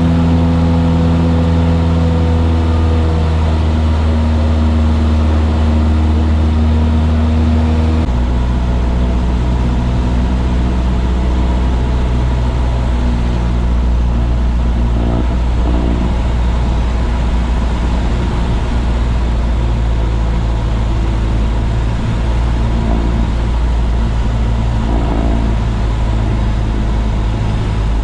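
Single-engine light airplane's piston engine and propeller running steadily, heard in the cockpit. About eight seconds in, the engine note drops to a lower pitch as power is reduced for a touch-and-go landing.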